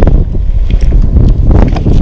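Strong wind buffeting the microphone: a loud, uneven low rumble that swells in gusts.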